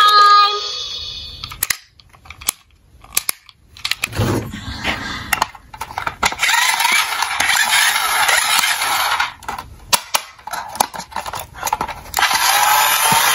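Plastic toy cars clicking and knocking as they are handled in a cardboard box, after the last notes of a toy's electronic tune. From about six seconds in a steady whirring hiss sets in, louder near the end, from a battery-powered toy police truck.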